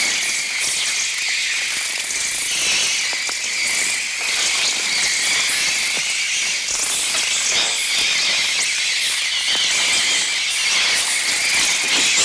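Electronic bird sounds from a Mixtur-Trautonium imitating a swarm of swifts: a dense, continuous mass of shrill, high chirping.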